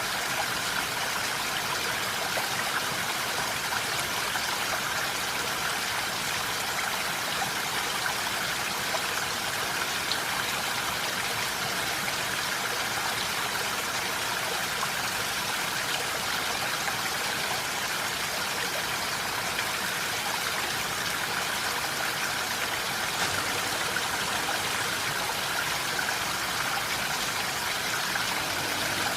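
Steady rain falling in a forest: an even, continuous hiss of water with scattered small drop ticks.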